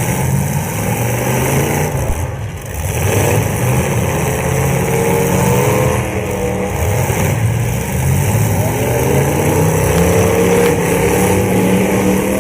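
Several full-size demolition derby cars' engines running and revving at once, the pitch rising and falling, with a brief drop in loudness about two and a half seconds in.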